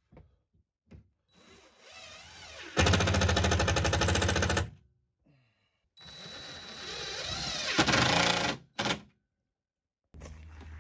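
A power drill-driver driving screws through a sheetrock panel into the ceiling, in two runs of a few seconds each that speed up and then stop sharply, with small knocks between them. Near the end, a steady engine hum starts.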